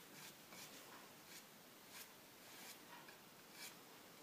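Faint, light scratching strokes of a paintbrush's bristle tips on a painted wooden slat, coming irregularly about every half second: dry-brushing a patina with very little paint on the brush.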